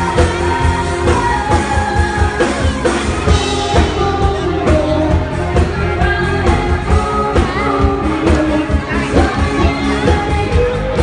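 Live pop band performing: a woman singing into a microphone over drum kit, electric guitar and keyboard, with a steady beat.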